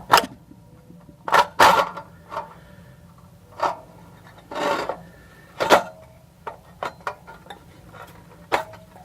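Sheet-metal pieces of a homemade tin-can muffler being handled: a series of sharp knocks and clanks spaced irregularly, with a short scraping sound near the middle.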